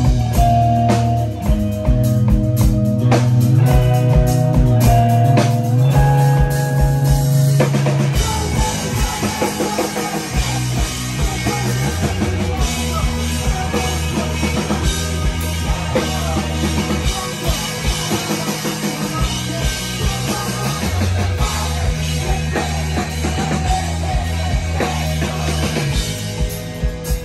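Live rock band playing an instrumental passage on electric guitars and drum kit. Held guitar notes ring over the drums for the first several seconds, then about eight seconds in the playing turns denser and busier.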